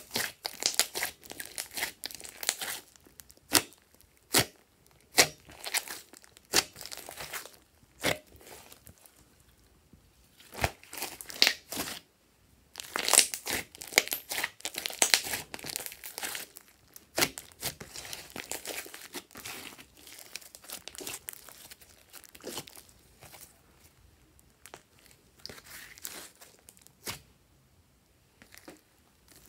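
Hands kneading, squeezing and folding thick glossy slime: sharp pops and wet crackles of air squeezed out of the slime, in clusters with short pauses between, some single loud snaps, and quieter scattered crackles near the end.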